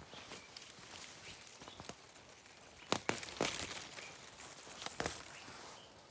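Forest undergrowth rustling, with a few sharp snaps: a close pair about three seconds in and another about five seconds in.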